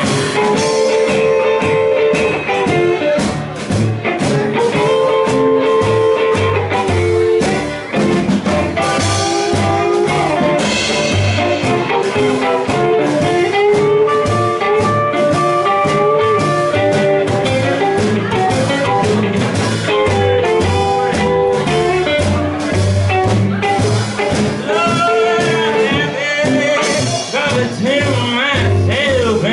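Live rockabilly band playing with a steady beat: electric guitar, upright bass, drum kit and acoustic guitar.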